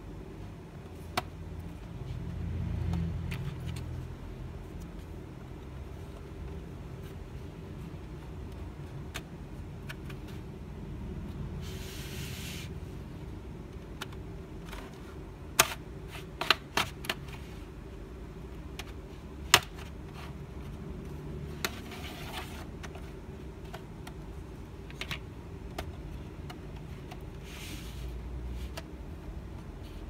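Plastic bottom cover of an Acer Aspire 3 laptop being pried off: sharp snaps of its clips letting go, several close together about halfway through, and short scrapes of a plastic pry tool along the case seam.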